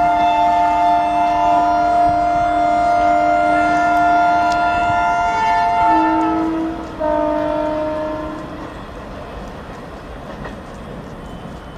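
WAP-5 electric locomotive's twin-tone horn sounding a long chord, then after a brief break a shorter, slightly lower blast about seven seconds in. The horn gives way to the steadier, quieter clatter of the express coaches running past.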